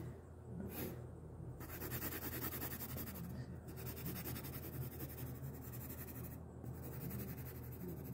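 Graphite pencil scratching rapidly back and forth on paper, shading with quick hatching strokes, in spells of a couple of seconds broken by a few brief pauses.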